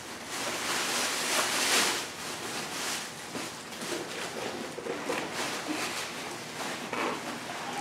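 Packaging rustling and crinkling as parts are handled and unpacked from the sander's box, a little louder in the first couple of seconds.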